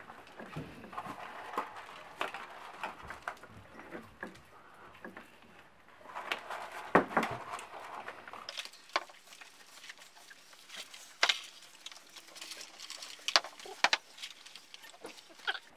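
Several people eating fast-food meals at a table: paper wrappers and food boxes rustling, with scattered sharp taps and knocks as food, cups and boxes are handled and set down.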